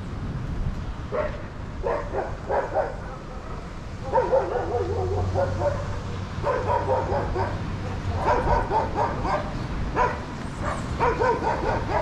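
Dog barking and yipping repeatedly in quick clusters of short calls, with a low steady hum partway through.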